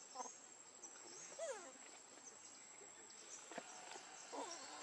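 Three faint, short gliding calls from macaques, the clearest about one and a half seconds in, over a steady high-pitched insect drone.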